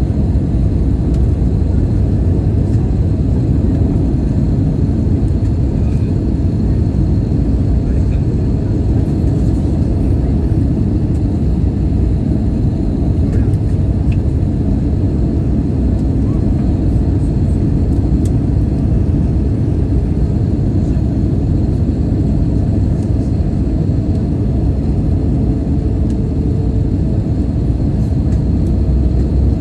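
Steady low rumble of an airliner cabin in flight, engine and airflow noise heard from a window seat as the plane descends toward landing.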